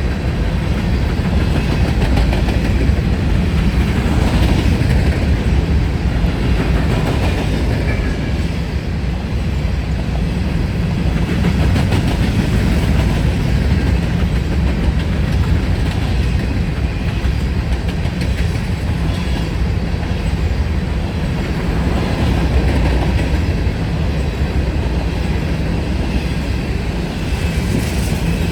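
Cars of a freight grain train rolling past at speed: a steady rumble with the clickety-clack of wheels over rail joints.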